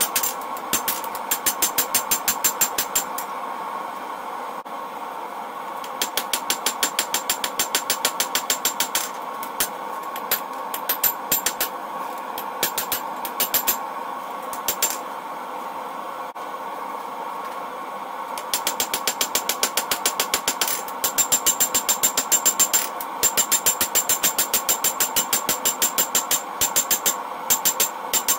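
Hand hammer striking red-hot leaf-spring steel on an anvil, played back at four times speed, so the blows come in rapid runs with a ringing anvil tone, broken by two pauses. A steady hum runs underneath.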